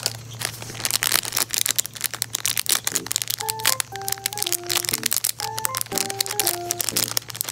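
Clear plastic bag crinkling and crackling as it is handled, over background music that brings in a simple stepped melody about three seconds in.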